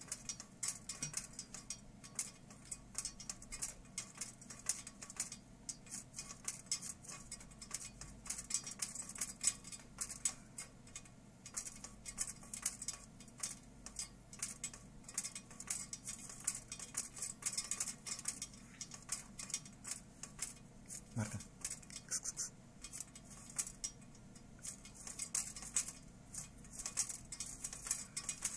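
Thin slats of a white venetian blind clicking and rattling against each other as a cat paws and pulls at them, in a fast, uneven run of small light clicks.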